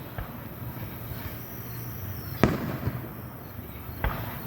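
Fireworks bursting: a sharp bang about two and a half seconds in, the loudest, then a smaller bang near the end, with a faint pop just after the start.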